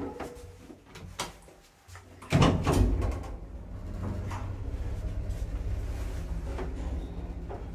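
Old ZREMB elevator's doors being handled: a few clicks, then a loud clunk about two seconds in, followed by a steady low hum with further scattered clicks.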